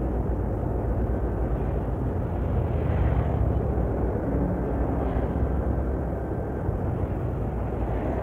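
Steady low rumble of road traffic close behind an intercity coach bus: engine and tyre noise, a little louder for a moment about three seconds in.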